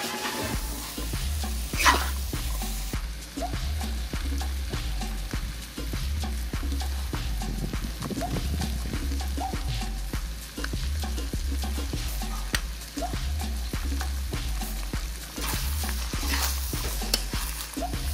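Wooden spatula stirring and scraping beef tripe, vegetables and chickpeas around a large aluminium wok while the food sizzles in the pan, with a low pulsing rumble underneath.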